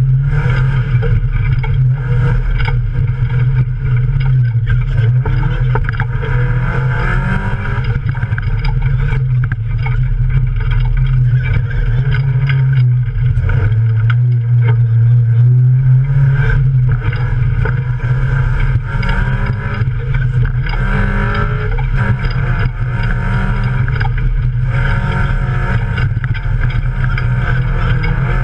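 Toyota Yaris off-road race car's engine, heard from inside the cabin, running hard with its pitch rising and falling as the car accelerates and eases off. Frequent knocks come from the rough ground.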